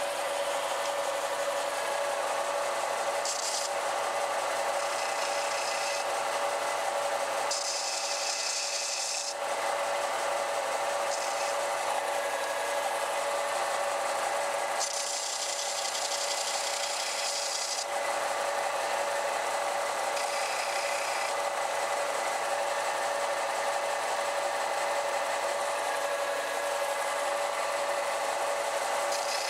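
Belt sander running steadily with a constant motor hum. Several times a small printed circuit board's edge is pressed to the moving belt, giving a hissing rasp for a second or two each time, the longest pass about halfway through.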